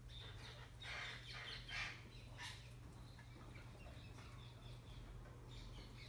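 A flock of green parrots calling faintly in short chirps, thickest about one to two and a half seconds in, over a steady low hum.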